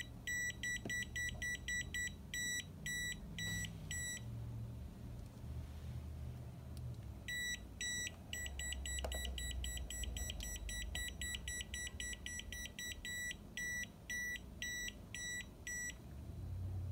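Kaiweets HT206D clamp meter's non-contact voltage alert beeping as it senses mains voltage. Short high-pitched beeps come about twice a second, stop for about three seconds, then return and quicken into a rapid run for several seconds before slowing again.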